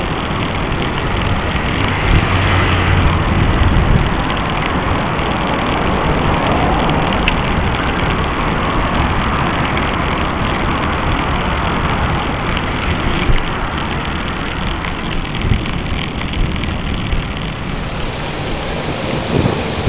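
Wind noise on the microphone and tyre noise from a bicycle rolling along a paved street: a steady, loud rush, heavier in the low end for a couple of seconds early in the ride, with a few light clicks.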